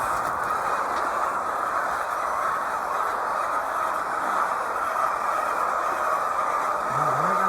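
Steady, even mechanical-sounding noise, with a brief low tone that rises and falls near the end.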